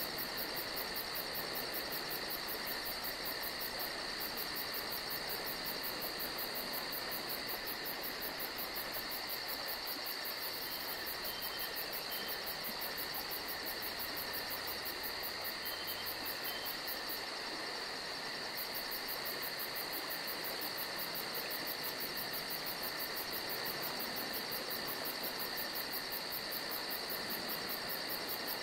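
Steady night chorus of crickets: a continuous, even trill with a fast pulsing high buzz above it.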